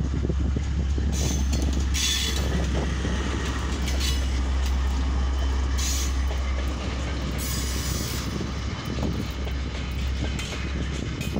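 KiwiRail DL-class diesel locomotive passing close by, its engine rumbling steadily, then container wagons rolling past on the rails. Several brief high hissing bursts come and go over the rumble.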